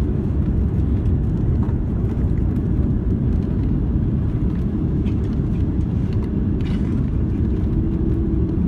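Steady low rumble of an airplane after landing, with a faint steady hum joining about five seconds in.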